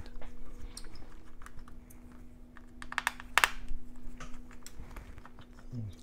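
Scattered small clicks and taps of fingers and tools handling parts inside an opened MacBook Pro, with one sharper click about three and a half seconds in, over a steady low hum.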